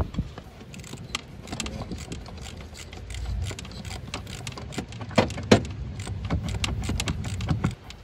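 Irregular metal clicks and clinks of a wrench working the nuts and fittings on a diesel fuel injection pump, two sharper clicks about five seconds in, over a low rumble.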